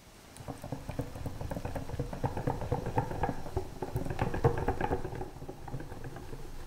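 Silicone-coated balloon whisk stirring half-whipped heavy cream into a runny caramel hazelnut mixture in a glass bowl: a fast, wet patter of small clicks and squishes. It starts about half a second in, is loudest past the middle and eases off near the end.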